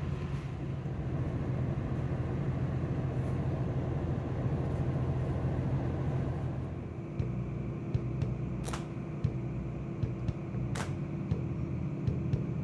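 Steady low hum of a diesel train's engines idling. The note shifts about seven seconds in, and a couple of sharp clicks follow.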